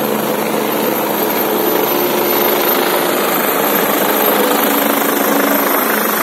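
Helicopter coming in low to land, its rotor and turbine engines running loud and steady.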